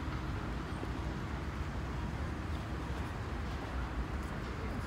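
Steady city background noise: a low, even rumble of road traffic with no single distinct event.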